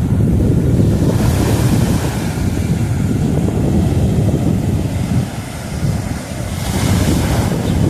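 Rough sea surf breaking and washing onto the shore, with wind buffeting the microphone in a heavy low rumble. The hiss of breaking waves swells twice, about a second in and again near the end.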